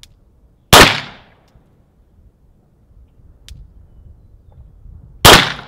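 Two handgun shots, each a sharp crack with a short ringing tail, about four and a half seconds apart.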